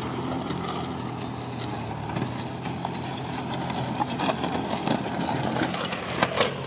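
A 50 hp tractor's engine running steadily as it pulls a disc plough through soil. Scattered sharp clicks and knocks grow more frequent in the second half, the loudest just before the end.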